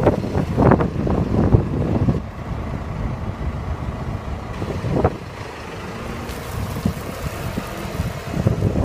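Tractor engine running as its rear-mounted hydraulic tipping bucket is pushed into a pile of soil and gravel, with scraping and crunching of stones in the first two seconds. The engine then runs on more steadily while the loaded bucket is lifted, with one sharp knock about five seconds in.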